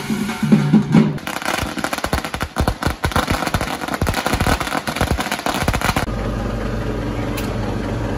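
Drumming for about a second, then about five seconds of rapid, irregular crackling and popping from Diwali firecrackers going off on the street. About six seconds in, the sound cuts to a steady, even hum like an idling engine.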